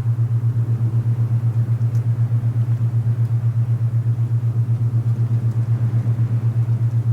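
A low, steady binaural-beat tone pulses in a fast, even throb, the alpha-wave beat. Beneath it runs a softer, steady wind hiss.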